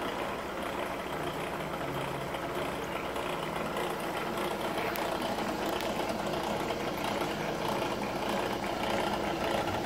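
ACME handsaw vise and filer running under its electric motor, its file arms rocking back and forth on their pivot brackets: a steady mechanical running sound with a fast, even rattle. Part of the noise is, the owner believes, from a totally trashed drive belt.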